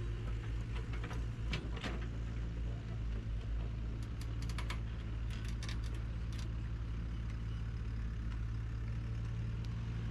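Heavy construction machine's engine running steadily at a low idle, with scattered light clicks and clatter.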